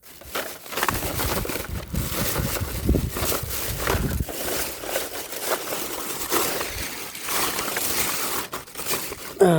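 Plastic bag crinkling and rustling, with irregular crunching and clicking as toy vehicles are handled and packed into it.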